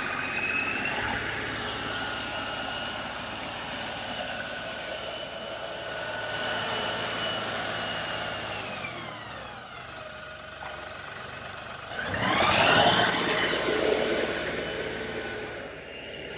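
Tractor engine running under work. Its pitch falls about nine seconds in, then rises sharply as it revs up about twelve seconds in, the loudest part.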